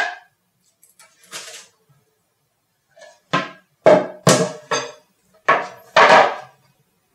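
Curved wooden chair seat and back panels knocking and clunking against a tile floor as they are handled and set down. There is one knock at the start, a faint one after about a second and a half, and a quick run of about six knocks in the second half.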